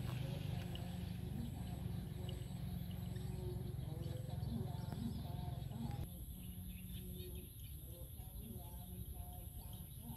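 Open-field ambience: a steady low rumble that eases about six seconds in, with faint, short bird calls scattered through it.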